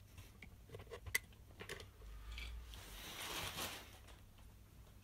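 Sharp utility knife cutting through plastic T-section edge trim: a few light clicks, then a crunchy slicing sound from about two seconds in that lasts about a second and a half.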